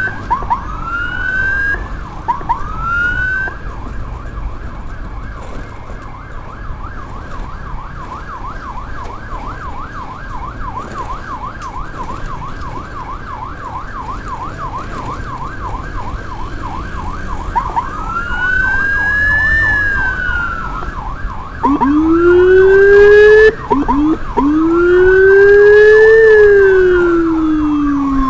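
Electronic emergency siren, a Whelen unit on an escort motorcycle, cycling through tones. It gives a few rising whoops, then a fast yelp for about fourteen seconds, then slow rising-and-falling wails. From about twenty-two seconds in, a lower-pitched wail joins alongside and the sound grows louder.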